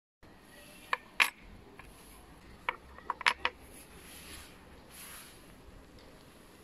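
A few short, sharp clicks and clinks of small metal clip pieces and bolts being handled against the top case's plastic base plate. The loudest comes just over a second in, and a quick cluster follows around three seconds in.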